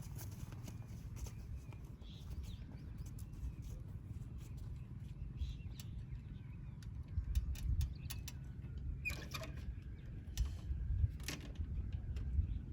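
Royal Enfield Bullet Electra 350's single-cylinder engine running with no silencer, straight-piped: a low, heavy exhaust beat that swells louder a couple of times, around the middle and near the end.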